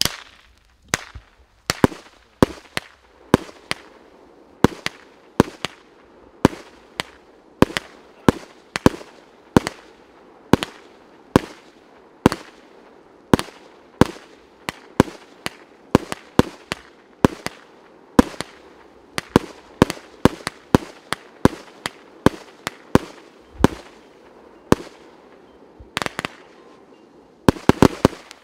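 A 300-shot, 1.2-inch consumer fireworks battery (cake) firing shot after shot: sharp bangs every half-second to a second, with a quick cluster of several bangs near the end.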